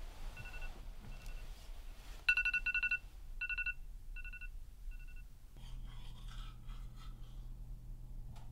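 Electronic beeping: short repeated beeps at one high pitch in irregular groups, loudest about two to three seconds in and fading out by about five seconds. Then a low steady hum with faint rustling.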